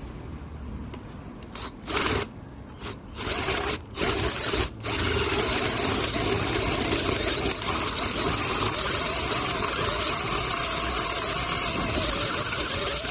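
SHAWTY S0006 cordless drill/driver boring through a wooden block: a few short trigger bursts in the first five seconds, then a continuous run with a wavering, squealing whine as the bit cuts into the wood.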